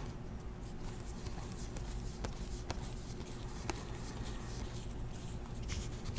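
A stack of Panini Classics football trading cards being flipped through by hand, the cardstock sliding against itself with a few faint, sharp clicks. A steady low hum runs underneath.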